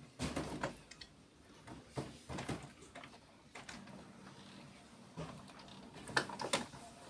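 HP Officejet Pro 8600-series inkjet printer going through its start-up initialization after being switched on: several irregular mechanical clunks and clicks from its internal mechanism, with quieter stretches between and the loudest pair near the end.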